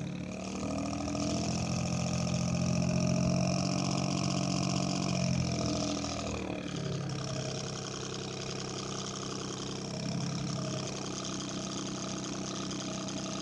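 Electric desk fan on its high setting, held back by a finger pressed against it, giving a pulsing engine-like drone that sounds like a two-stroke Detroit Diesel. As the finger eases off slightly, the pitch climbs over the first few seconds. It falls back around the middle and then holds steady.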